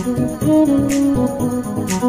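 Instrumental background music: a melody of short pitched notes with one longer held note near the middle, over a light tap about once a second.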